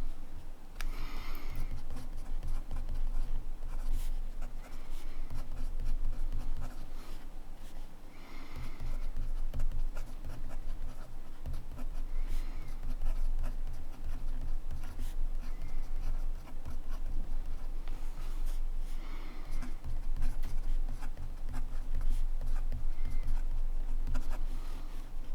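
Montblanc Meisterstück 144 fountain pen nib scratching over paper in continuous handwriting, short irregular strokes one after another.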